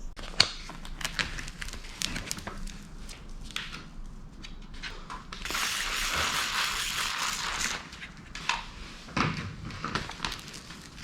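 Crackling and crinkling of a vinyl decal's backing tape being peeled off, with scattered clicks, and a steady hiss of about two seconds near the middle from soapy water being sprayed onto the decal.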